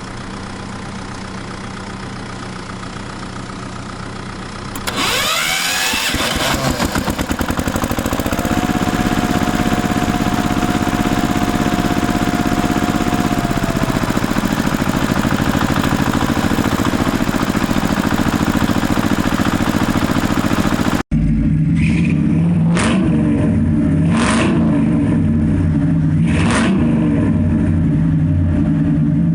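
Heavy vehicle engine idling, then revving up about five seconds in and running louder, with a steady high whine for several seconds. About twenty seconds in it cuts abruptly to another engine running, with three sharp hissing bursts.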